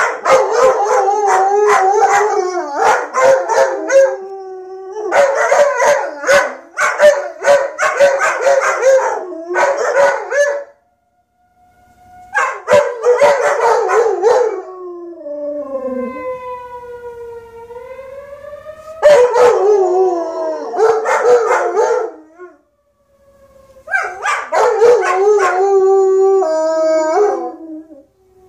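Two German Shepherds howling together, long wavering howls that rise and fall in pitch. They come in several bouts with short breaks between them.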